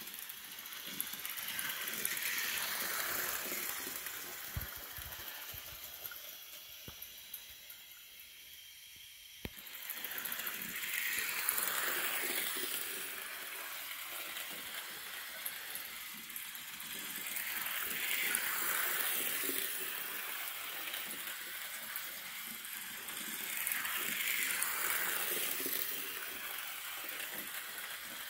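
Miniature HO-scale live steam locomotive running around a loop of track, giving a hissing, rattling running noise. It swells and fades about every six to seven seconds as the engine comes near and moves away on each lap, with a quieter stretch before it comes back abruptly.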